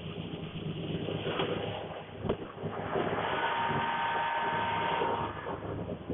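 Machinery running, with a sharp knock about two seconds in and a steady whine from about three to five seconds in.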